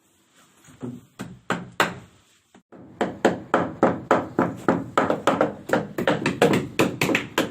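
A few separate knocks, then from about three seconds in a fast, even run of tapping knocks, about four to five a second.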